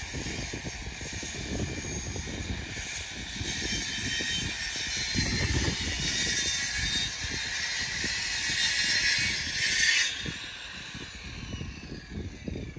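Stunt scooter wheels rolling over concrete skatepark slabs: a steady rushing hiss with a low rumble, dropping off about ten seconds in.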